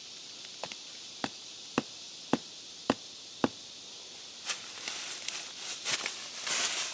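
A wooden stick stake being knocked into the ground: six sharp knocks about half a second apart. About four and a half seconds in they stop and footsteps start rustling through dry leaf litter.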